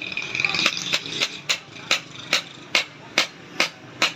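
Hammer blows on metal in an even rhythm, a little over two strikes a second, each a sharp ringing hit.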